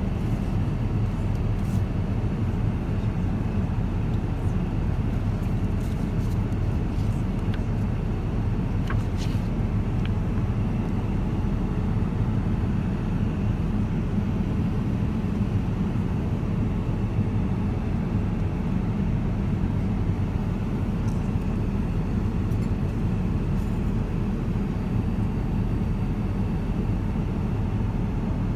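Steady in-flight cabin noise of a Boeing 787-9: a constant low rumble of engines and airflow heard from inside the passenger cabin, with a few faint ticks about six to ten seconds in.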